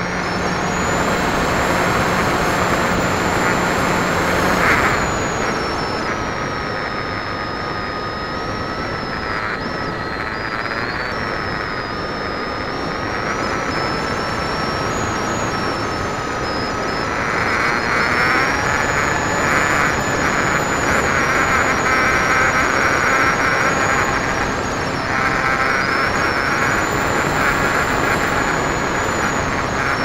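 Electric motor and pusher propeller of a radio-controlled model plane heard from a camera on board: a steady whine over a rush of airflow. The whine drops in pitch and level after about five seconds and climbs again, louder and buzzier, a little past halfway as the throttle changes.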